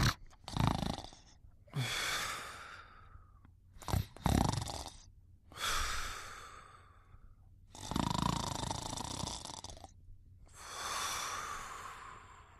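Cartoon snoring sound effect: a run of noisy sleeping breaths every couple of seconds, the longer ones carrying a thin whistle.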